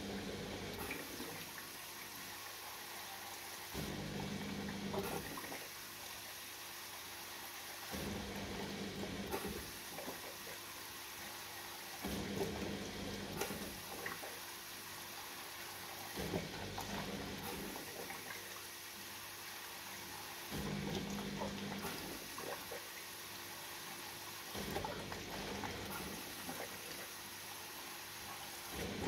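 Neff S54E53X1EU dishwasher running: water swishing inside in surges of about a second and a half that come back roughly every four seconds, over a steady hum.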